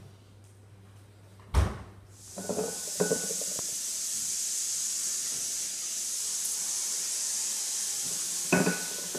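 A steady high hiss starts about two seconds in, after one sharp thud, and carries on throughout. Over it come a few short knocks and clinks as a cat paws at a glass bowl of water, one cluster near the start of the hiss and another near the end.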